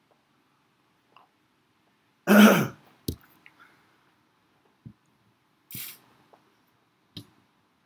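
A man clears his throat once, harshly, about two seconds in. A few small clicks and a short hissy breath follow, around six seconds in.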